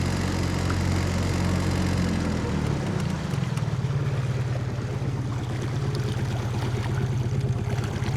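A 15 HP four-stroke outboard motor runs steadily, then slows to a lower speed about two and a half to three seconds in and settles into an even, chugging low-speed run.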